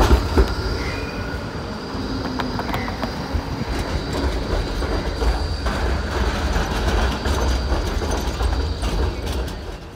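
Melbourne E-class tram passing, its steel wheels running on the street rails with a steady high-pitched whine over a low rumble and a few clicks.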